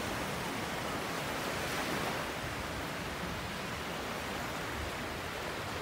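Ocean surf on a beach, a steady rushing wash of waves that swells slightly about two seconds in.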